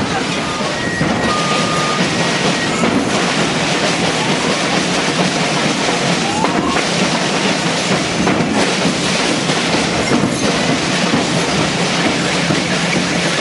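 Drums of a school marching band playing in the street, a dense steady clatter with a few louder crashes.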